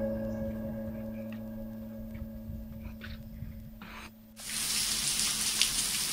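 The last held notes of background music die away. About four seconds in, a steady patter of heavy rain starts abruptly.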